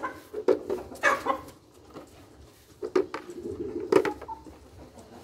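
Chickens clucking in short calls, with a couple of sharp clicks of eggs being set into a plastic bowl about three and four seconds in.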